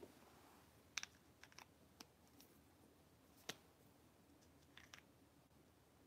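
Near silence with a handful of short, faint clicks scattered through the middle, the sharpest about a second in and again about halfway.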